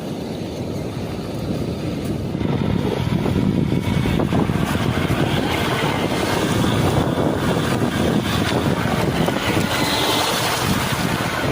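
Off-road RC crawler running over beach sand, its electric motor whining faintly under heavy wind noise on the microphone, which grows louder about two and a half seconds in.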